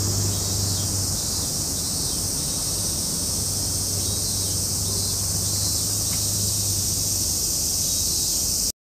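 Steady high-pitched insect chorus over a low steady hum, outdoor ambience that cuts off suddenly near the end.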